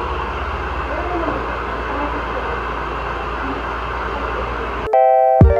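Handheld hair dryer blowing steadily on wet hair, a constant rushing with a low hum under it. Near the end it cuts off and background music comes in suddenly.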